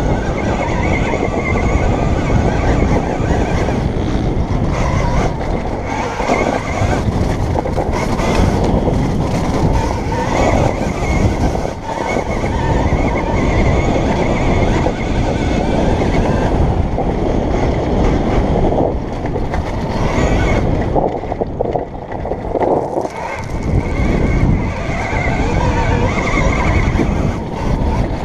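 Riding sound of a KTM Freeride E electric dirt bike on a dirt and grass track, heard from a helmet camera: heavy wind on the microphone with tyre and chassis rumble over rough ground, and a faint high whine of the electric motor. It eases briefly about three-quarters of the way through, then picks up again.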